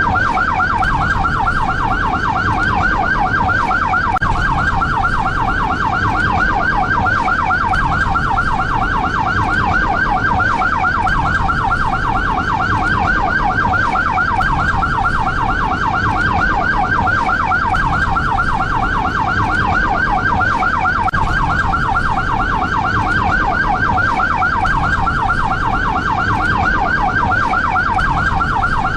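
SAMU ambulance siren sounding a fast yelp: a rapid, even up-and-down pitch sweep repeating several times a second without a break, over a low rumble.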